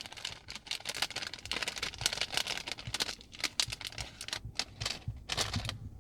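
Irregular light clicks and rattles of small hardware being handled, as a self-tapping screw is picked out and set on a Phillips driver bit.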